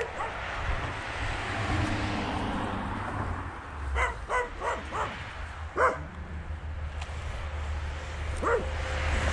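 A dog barking: a quick run of about five short barks about four to six seconds in, and one more near the end, over a steady low rumble.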